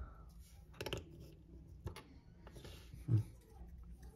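Soft clicks and light handling of small plastic Lego minifigure parts being fitted and adjusted by hand, with one brief, louder low sound about three seconds in.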